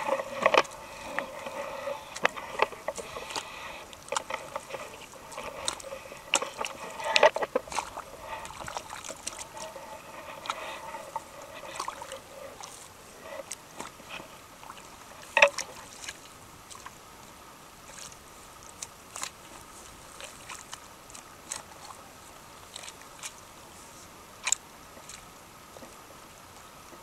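Irregular splashing and sloshing in shallow water, with scattered sharp splashes now and then. Faint voices are mixed in during the first half.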